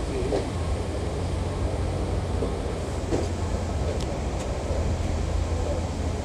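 Steady low rumble of a moving vehicle, with a few brief squeaks and light ticks over it.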